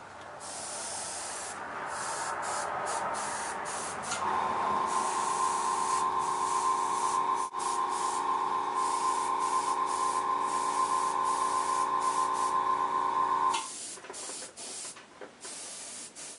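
Airbrush spraying paint with a steady hiss. About four seconds in, a steady pitched mechanical hum joins it and becomes the loudest sound. The hum cuts off suddenly about three seconds before the end, leaving a few faint clicks.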